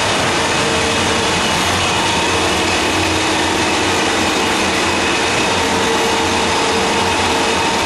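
Fourdrinier paper machine running at its wet end: a steady, loud mechanical din of drives and electric motors with a few constant hum tones, unchanging throughout.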